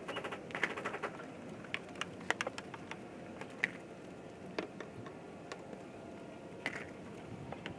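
Hand car wash: faint scattered ticks and patter of water dripping and splashing off a wet car, over a low background hiss.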